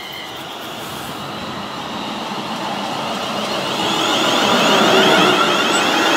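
A Class 350 Desiro electric multiple unit approaching along the platform and drawing past, its running noise growing steadily louder. A whine comes in as the front draws level, about four seconds in.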